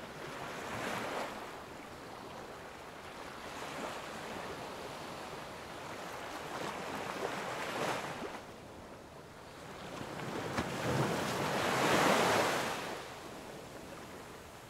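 Sea waves washing in, a rushing hiss that swells and fades in surges every few seconds, with the longest and loudest surge near the end.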